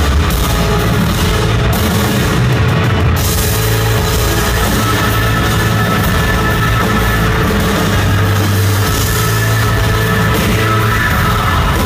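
Indie rock band playing live at full volume: electric guitars, keyboards and a drum kit, with sustained chords and a steady beat.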